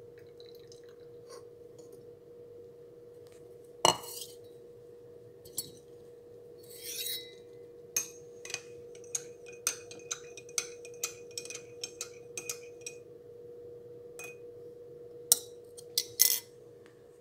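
Steel kitchenware and a drinking glass clinking: one loud clank about four seconds in, then a run of light ringing clinks about twice a second, and a few more near the end, over a steady faint hum.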